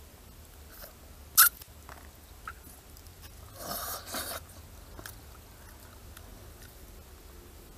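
Boiled eggs being shelled and eaten by hand: a sharp crack of eggshell about a second and a half in, small clicks of shell, and a longer crackling, crunching patch around four seconds.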